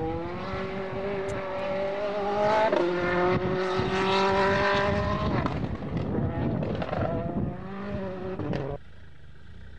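Mini WRC rally car's 1.6-litre turbocharged four-cylinder engine driven hard on gravel: the pitch climbs, dips at a gear change about three seconds in, and climbs again before lifting and wavering. The sound cuts off suddenly near the end.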